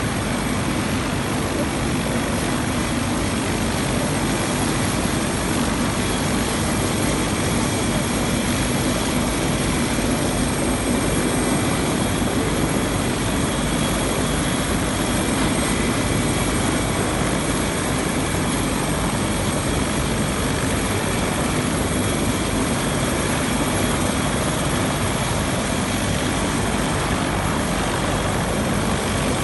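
Small turbine medical helicopter running on the ground: a loud, steady rush of engine and rotor with a thin high whine over it.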